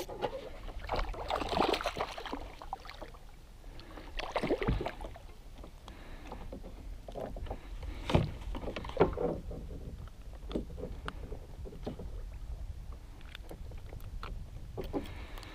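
Water splashing and handling noises as a small tuna is lifted from the water into a plastic kayak and unhooked from a metal jig. The louder splashes come in the first few seconds, with sharp knocks around eight and nine seconds in and scattered small clicks.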